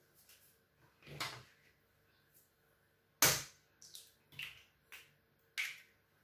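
Eggs being cracked with a metal spoon over a plastic mixing bowl: several sharp taps and knocks, the loudest about three seconds in.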